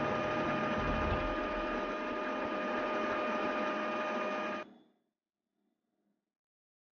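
Epson L3116 ink-tank printer running its initial ink charge: a steady mechanical whir with a held whine, which cuts off suddenly about four and a half seconds in.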